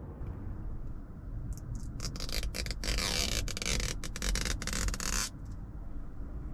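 Clear plastic protective film being lifted with a plastic pick and peeled off the M badge on a leather seat headrest. It makes a scratchy, crackly peel that starts about two seconds in and lasts about three seconds.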